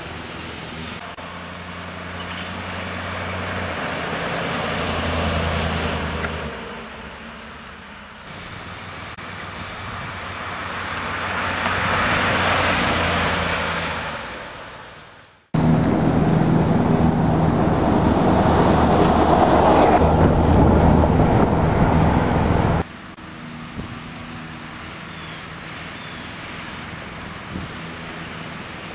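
Older Dodge Ram pickup truck's engine and tyres as it drives along a paved road, growing louder and fading away as it passes. About halfway through the sound cuts to a louder steady engine run for about seven seconds. That stops suddenly, leaving a quieter low engine hum as the truck rolls slowly toward the listener.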